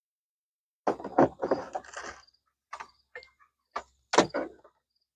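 Clattering knocks and rubs from a plastic shower pump head and its cable being handled and set down on a wooden bench, in several short, irregular bursts, the loudest about a second in and again about four seconds in.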